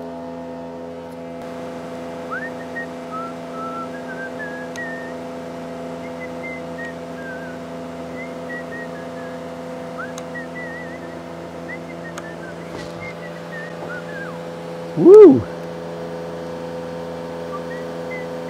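A steady electrical hum with several pitches, over which a man whistles soft short snatches of a tune as he works. About fifteen seconds in he gives one loud 'Woo!', rising and falling in pitch.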